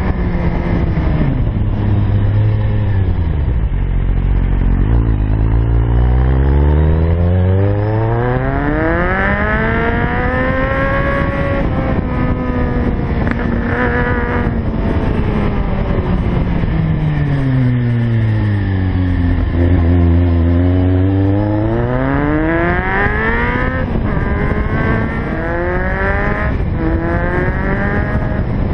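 Kawasaki Z750's inline-four engine under way, its pitch falling smoothly as the bike slows and rising again as it accelerates, twice over, then a few shorter rises and falls near the end.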